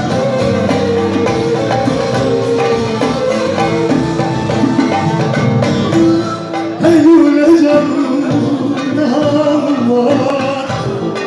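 Turkish folk music played live on bağlama, a long-necked plucked lute, with percussion. A strong wavering melody line comes in about seven seconds in.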